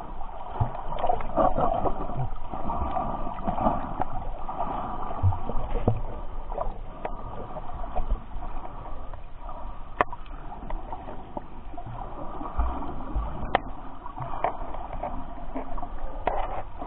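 Muffled sloshing and gurgling of sea water heard through a camera held just under the surface, with scattered sharp clicks, the loudest about ten seconds in.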